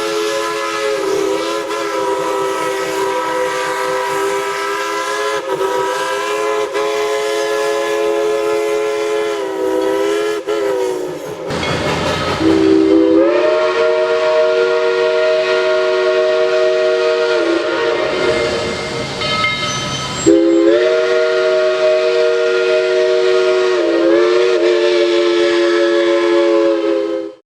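A multi-chime steam locomotive whistle sounding three long blasts, each a chord of several notes that bends in pitch as the valve opens and closes, with steam hiss between them. The last blast cuts off abruptly near the end.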